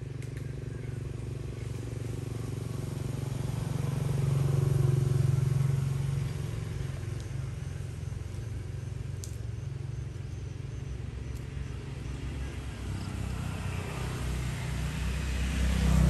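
Motor vehicle engines running and passing, a low steady hum that swells louder about five seconds in and again near the end.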